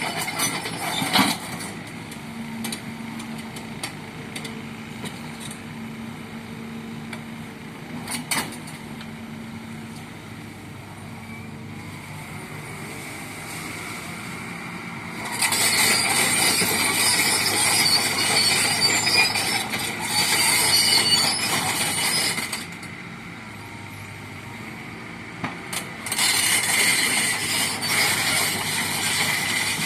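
Kobelco hydraulic excavator's diesel engine running steadily. Halfway through comes a long stretch, about seven seconds, of loud harsh metallic grinding and squealing from the machine working, and a shorter one near the end, with a few clanks between.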